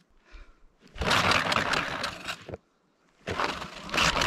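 DIY electric snowboard's motor-driven, 3D-printed tread spinning in two bursts, a noisy grinding: the tread digs through the snow and grinds on the ice underneath. The first burst starts about a second in and lasts about a second and a half; the second follows after a short pause.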